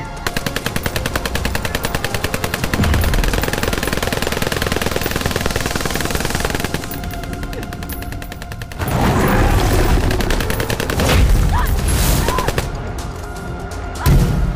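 A long burst of rapid automatic gunfire that stops about halfway through, followed by heavy low thuds and rumbling, with a loud thud near the end.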